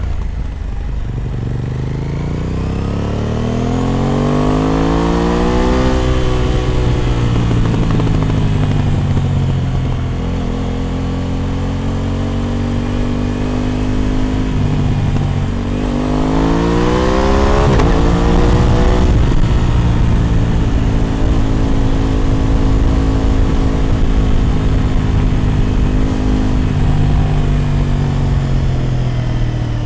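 Aprilia RS 660 parallel-twin engine through an SC Project exhaust, on the move: the pitch climbs under acceleration for several seconds, drops and holds, then climbs again in quick steps about two-thirds of the way in before settling into a steady cruise.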